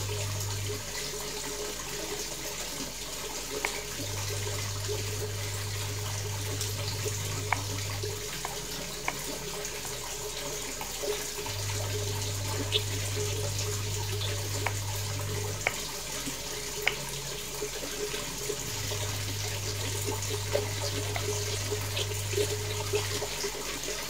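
A kitchen knife cutting through tempe and tapping the wooden cutting board in sharp, irregular taps, over a steady rushing hiss in the background. A low hum switches on and off every few seconds.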